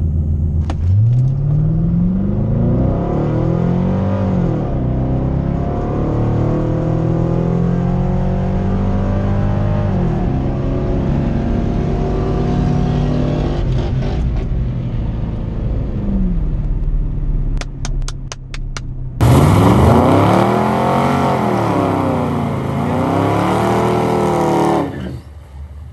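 C5 Corvette's V8 accelerating hard through the gears on a drag-strip pass, heard from inside the cabin, the revs climbing and dropping back at each upshift. About nineteen seconds in it switches to the car heard from outside doing a burnout, the engine louder and revving up and down.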